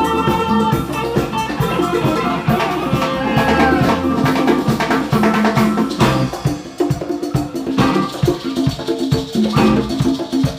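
Live band playing Latin-style rock: drum kit and hand percussion with a shaker keep a steady beat under sustained instrument notes.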